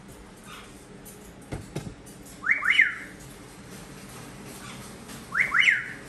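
Amazon parrot whistling: two loud calls a few seconds apart, each a pair of quick rising whistles that fall away at the end. A brief low knock comes about a second and a half in.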